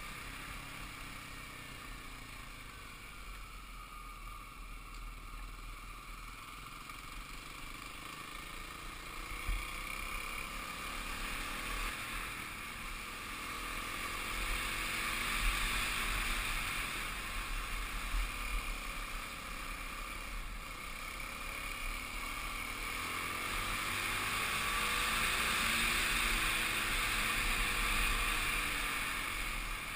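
Kawasaki KLX250 single-cylinder dirt bike engine running under way, its pitch slowly rising and falling with the throttle, under a steady rush of wind over the helmet-camera microphone, with a few low thumps from bumps in the trail.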